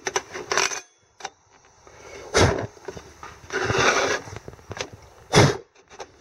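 Metal clinks and knocks from handling a small alcohol stove as its burner is snuffed out: two sharper knocks, about two and a half and five and a half seconds in, with a brief scraping sound between them.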